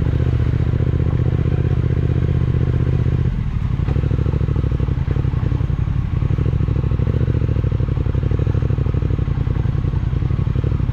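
Triumph Speed Twin 1200's parallel-twin engine running steadily at low speed on a rough dirt track. The engine note drops and changes about a third of the way in, then runs on evenly.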